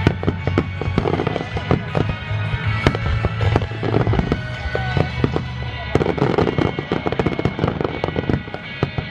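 Fireworks finale: a starmine barrage of shells bursting in rapid, irregular succession, dozens of sharp bangs and crackles close together. Music with a heavy bass plays alongside, its bass dropping away about six seconds in.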